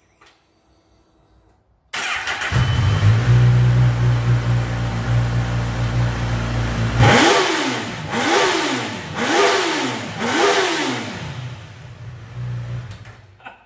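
Honda CB1000R's 1000cc inline-four engine starting about two seconds in and idling steadily. It is then revved four times in quick blips, each rising and falling, and settles back to idle.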